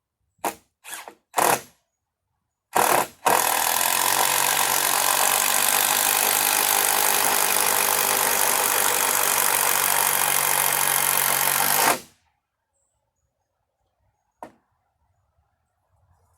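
Power drill running: three short trigger blips, then a steady run of about eight seconds, likely driving a long screw into lumber, and one more short blip near the end.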